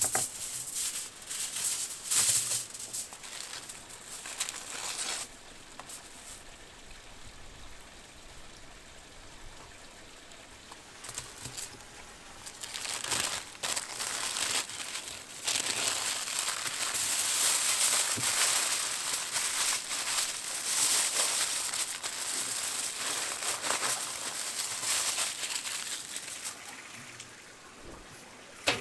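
Aluminium foil and baking paper crinkling and rustling as they are smoothed flat and folded to wrap a steak. The rustle comes in short bursts for the first few seconds, goes quieter, then runs denser and steadier through most of the second half. A single sharp tap comes near the end.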